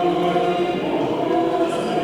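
Church choir chanting a liturgical hymn of the Orthodox consecration rite in held notes. The notes shift a little under a second in.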